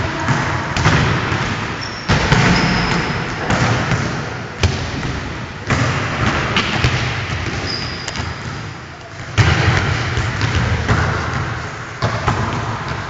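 Volleyballs being served and thudding against the floor and walls of a gym hall, several sharp hits a few seconds apart over a steady echoing din.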